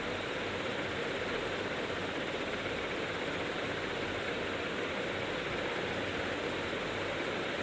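Steady, even hiss of background noise, with no separate sounds standing out.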